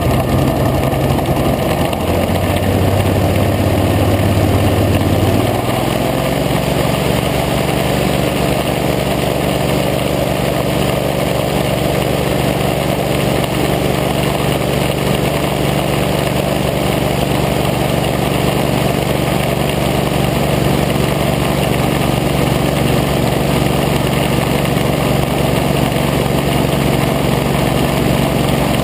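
Hovercraft engine running. It steps up in speed about five and a half seconds in, then holds a steady higher pitch.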